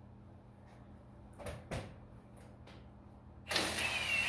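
Two light clicks, then about three and a half seconds in a shop power tool starts up loudly: a hissing run with a steady high whine through it.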